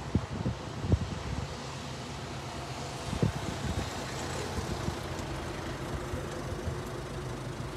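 Wind buffeting the microphone in a few sharp gusts over a steady low vehicle-like rumble, with a faint steady tone coming in about five seconds in.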